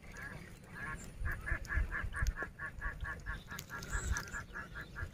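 An animal calling in a fast, even series of short nasal notes, about five a second, starting about a second in, over low thumps.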